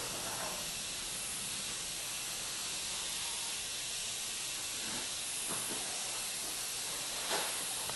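Steady hiss of high-voltage corona discharge from a homemade ionocraft lifter fed by a computer monitor's high-voltage supply, with a brief crackle near the end.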